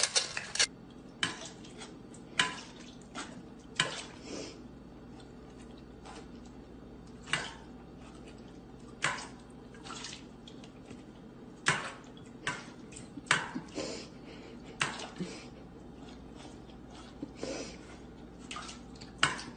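A dog eating and drinking from stainless steel bowls: irregular sharp metallic clinks, about one every second or so, as the bowls are knocked.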